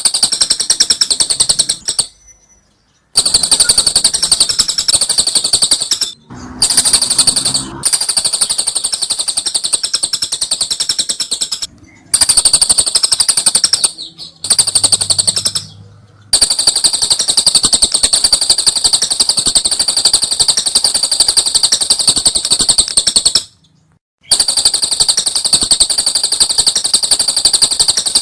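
Lovebird doing the long 'ngekek' chatter: a high, rapid rattling trill held for several seconds at a time, broken by short pauses.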